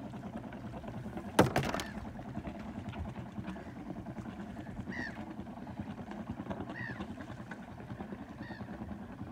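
A bird giving short, repeated calls, four in all, roughly every one and a half to two seconds, over a steady low rumble, with one sharp knock about a second and a half in.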